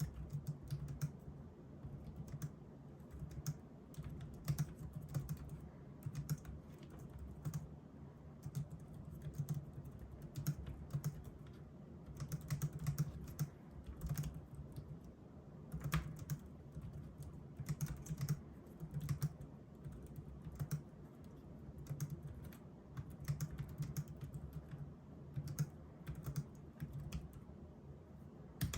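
Typing on a Logitech K380 slim Bluetooth keyboard: a fast, irregular stream of soft clicks from its low-profile round keys, with short pauses between bursts of keystrokes.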